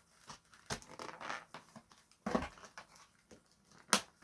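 Doll packaging being handled: scattered soft rustles and small plastic clicks as the ties holding the doll's dress to the box insert are worked at, with one sharper click near the end.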